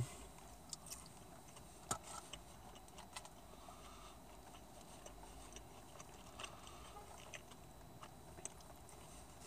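Faint chewing and a few scattered small clicks as chicken nuggets are eaten, with quiet stretches between.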